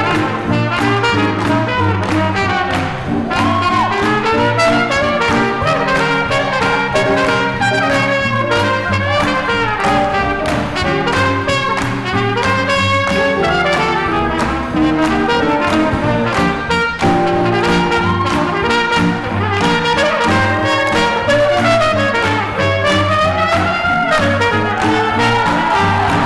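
Live swing jazz band playing at dance tempo, brass out front with a trumpet prominent, over upright bass and drums keeping a steady beat.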